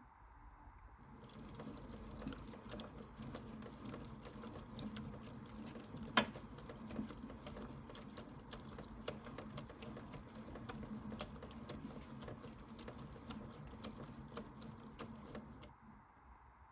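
Bosch Logixx 8 toy washing machine taking in water at the start of its wash cycle: a steady trickling, splashing inflow over a low hum, with one sharp click partway through. It starts about a second in and stops about a second before the end.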